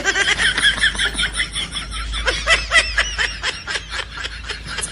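High-pitched laughter, a fast run of short cackles several times a second.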